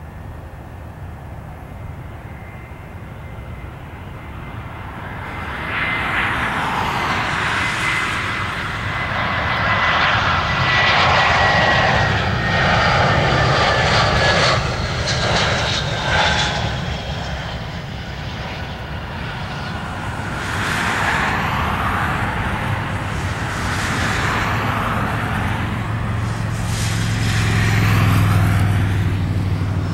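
Airbus A320's IAE V2500 turbofans on final approach, growing louder from about five seconds in, with a high whine that slowly falls in pitch as the jet passes and touches down. Past the middle the engine noise swells again with a deep rumble as the jet slows on the runway, typical of reverse thrust.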